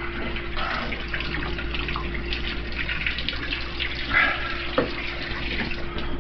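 Water running from a tap into a sink in a steady stream.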